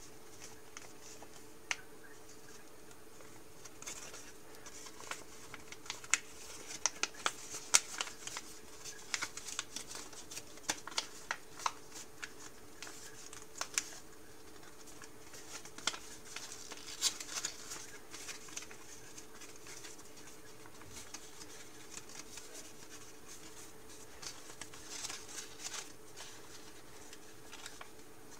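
A sheet of origami paper being folded and creased by hand: irregular crisp crackles and rustles, densest in the first half and again near the end, over a faint steady hum.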